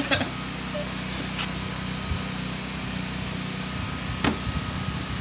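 A steady low mechanical hum, with one short knock about four seconds in.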